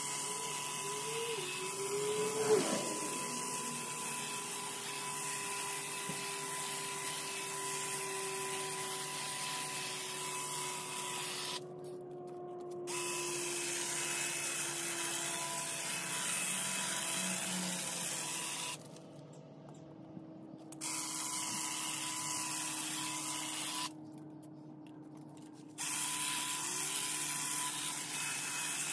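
Pole hedge trimmer running steadily as it cuts the top of a tall ivy hedge. The motor cuts out briefly three times and then starts again.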